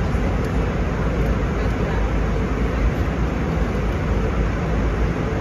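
Steady cabin noise of an Airbus A320 in flight, heard from a window seat: a constant rush of airflow with a deep engine drone underneath, unchanging throughout.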